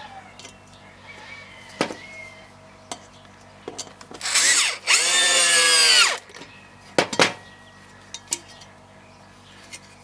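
Electric drill driving a screw through a washing-machine pulley into a wooden block: a short burst about four seconds in, then a longer run of about a second, with the motor's pitch dropping as it stops. A few sharp knocks of the drill and parts being handled come before and after.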